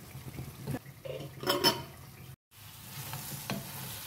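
Wooden spatula stirring potatoes and peas frying in thick masala in a stainless steel pan: a soft sizzle with scrapes and knocks of the spatula against the pan, the loudest about a second and a half in. The sound cuts out for an instant just past halfway.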